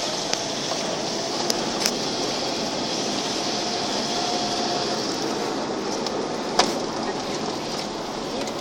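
Steady road and engine noise heard inside a moving car's cabin, with a few sharp clicks, the loudest about two thirds of the way through.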